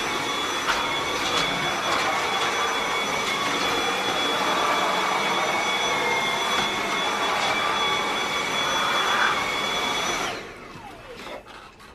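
Dyson cordless handheld vacuum cleaner running steadily with a high whine. It is switched off about ten seconds in and winds down with falling pitch.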